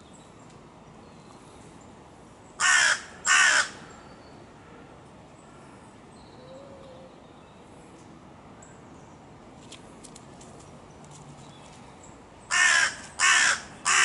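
A crow cawing: two harsh caws close together about three seconds in, then three more in quick succession near the end.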